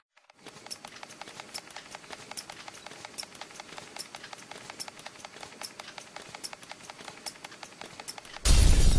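Faint, irregular crackling clicks, then a loud, sudden burst of noise with a deep low end near the end.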